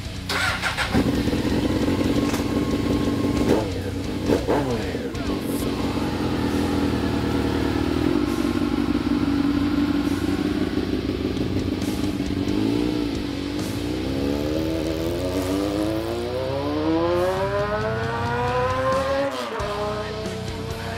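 Honda CBR F4i's 600 cc inline-four running through a short GP-style slip-on exhaust: two quick throttle blips, a steady stretch, then the revs climb for several seconds, dip briefly near the end and hold higher.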